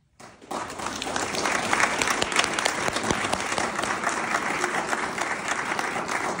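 Audience applauding, starting about half a second in after a moment of silence, many hands clapping together.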